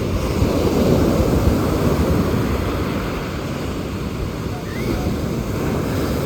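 Ocean surf breaking and washing up the beach: a noisy rush that swells over the first second or two and then eases, with wind buffeting the microphone.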